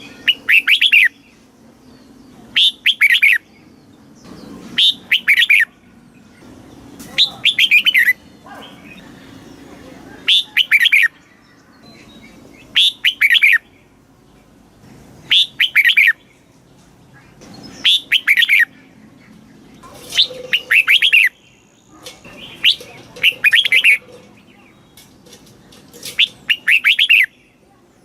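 Red-whiskered bulbul singing: short, loud phrases of quick down-slurred whistled notes, repeated about every two and a half seconds.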